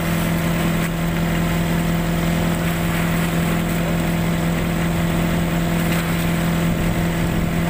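Motorized bangka (outrigger boat) engine running steadily at an even, unchanging pitch.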